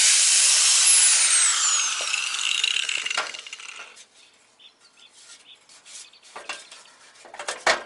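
Corded angle grinder with a cutting wheel cutting into steel car body metal, then released: its whine falls in pitch as the wheel spins down over about two seconds. After that come a few light clicks and a sharp knock near the end.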